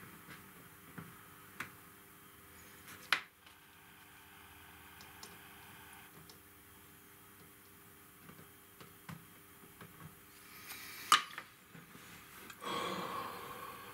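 Small plastic model-kit parts being handled and pressed together by hand: scattered sharp clicks, two of them louder (about 3 and 11 seconds in), over a faint steady hum, with a short rustle near the end.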